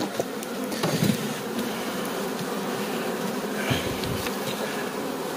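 Carpathian honeybees (Bukovynka line) buzzing steadily over an opened hive, the continuous hum of many bees at once while the frames are exposed.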